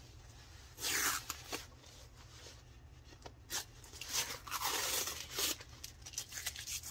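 Tape and plastic wrapping being cut and torn open around a rolled canvas: a short tear about a second in, then a longer stretch of tearing and crinkling from about four seconds in, with scattered small clicks between.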